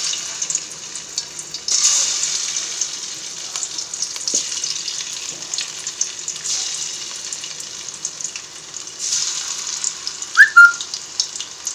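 Marinated chicken pieces sizzling in hot coconut oil, the sizzle swelling afresh about two seconds in and again near the end as more pieces go in. Near the end come two brief high squeaks, the loudest sounds.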